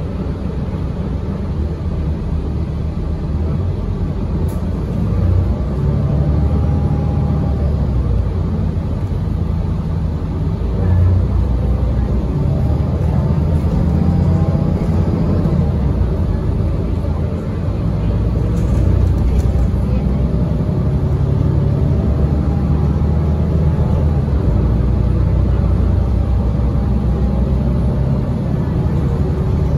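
Interior ride noise of a 2017 Gillig BRT transit bus underway: a steady low engine and road rumble, with a faint whine that slides up and down in pitch as the bus changes speed.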